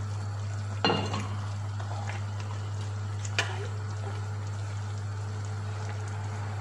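Cream sauce with chicken, potatoes and carrots simmering in a wok, bubbling steadily. A short clatter of the wooden spoon comes about a second in, and a sharp click a little past three seconds.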